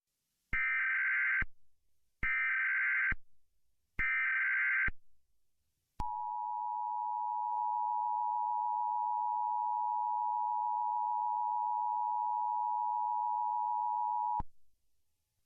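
Emergency Alert System alert opening: three short bursts of SAME header data tones, each about a second long, then the steady two-tone EAS attention signal held for about eight seconds, which cuts off abruptly.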